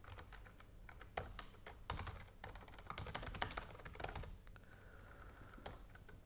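Faint computer keyboard typing: a quick, uneven run of key clicks that thins out after about four seconds.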